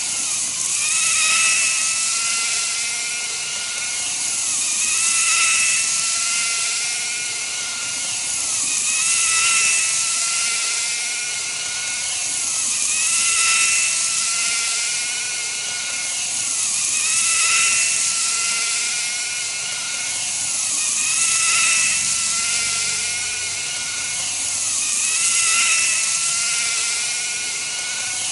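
N-gauge model train's KATO electric motor unit whining as the train runs laps of a small loop, with track and wheel hiss over it. The sound swells about every four seconds as the train passes close, and the whine dips briefly in pitch each lap.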